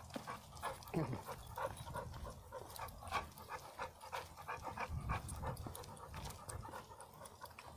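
American Staffordshire Terrier panting in quick, even breaths while walking on the leash.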